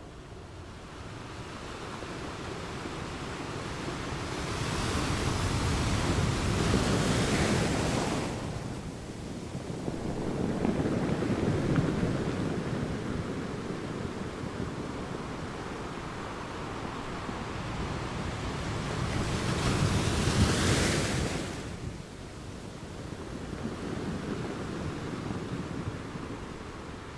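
Waves surging and breaking, a steady wash that swells twice into a loud crash of surf, a few seconds in and again about two-thirds of the way through, with wind rumbling on the microphone.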